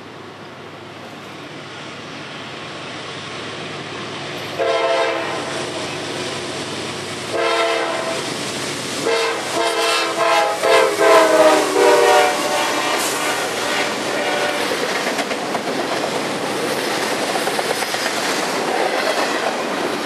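Double-stack freight train led by GE Dash 9 diesel locomotives approaching and passing at speed, the lead unit sounding its chime horn: a long blast about five seconds in, a second long blast, then a string of short quick blasts. After that the locomotives and container cars go by with steady wheel and rail noise and clickety-clack.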